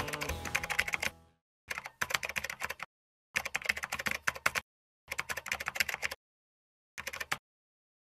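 Rapid keyboard-style clicking in four short runs, each a second or so long except a brief last one, separated by dead silence. Rock music fades out in the first second.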